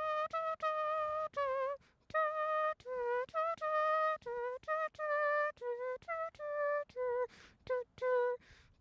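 A woman humming a tune, a run of short and held notes with brief breaks between them, a few of them wavering in pitch.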